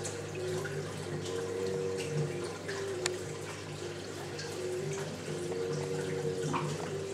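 Water circulating and trickling in a reef aquarium, with small drips and splashes scattered through it over a steady low hum.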